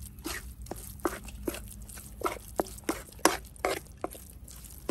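Metal spatula scraping and tapping against a frying pan as it breaks up and spreads raw minced meat, in irregular strokes about two or three a second.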